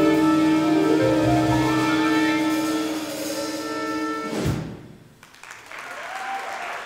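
Jazz septet of saxophone, trumpet, trombone, piano, vibraphone, upright bass and drums holding a final chord, then closing with one accented hit about four and a half seconds in that cuts off the tune. Audience applause begins about a second later.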